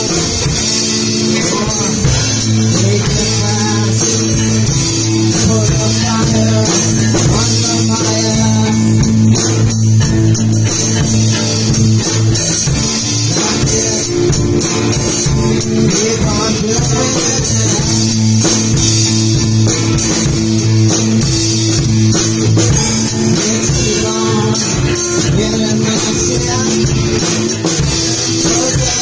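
Live rock band jamming a loose, improvised groove: two electric guitars and a drum kit playing together, loud and steady throughout.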